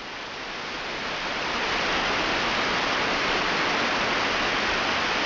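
Steady hiss of white noise like static, growing louder over the first two seconds and then holding level.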